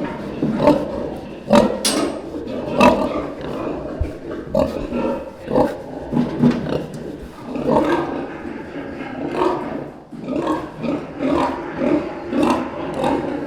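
Pigs grunting and calling: a dense run of short, overlapping rough calls, one or two a second, with a few sharper, higher cries among them.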